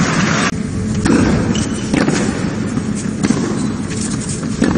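Tennis rally on a hard court: racquets strike the ball about once a second over a steady arena background.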